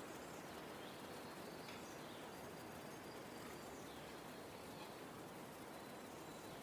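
Faint, steady rainforest rain hiss, with scattered short bird chirps every second or so and a thin steady high tone coming and going.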